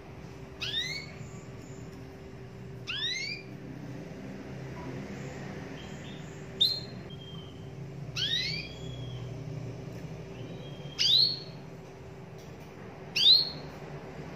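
Domestic canary giving short, single rising call notes, six in all, two to three seconds apart, over a faint steady hum.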